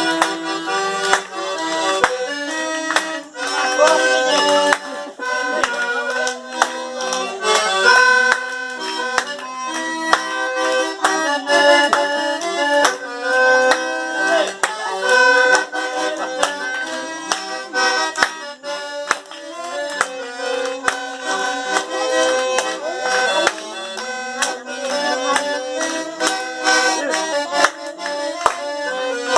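Sanfona (accordion) playing a tune: held, reedy notes moving in a melody over lower chord notes, with no break.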